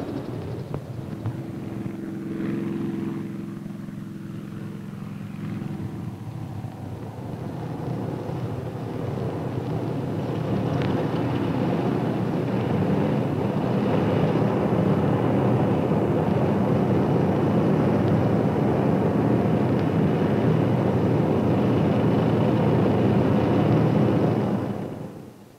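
Grumman F6F Hellcat's Pratt & Whitney R-2800 radial engine running, droning with a clear pitched tone a few seconds in. A louder, steady engine rush then builds from about eight seconds in, holds, and fades out at the end.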